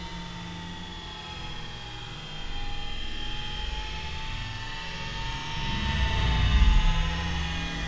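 Eachine E120 toy RC helicopter in flight: a thin, steady electric-motor whine from its brushed motors and rotors, drifting slightly in pitch. Under it runs a low rumble that grows louder about six seconds in.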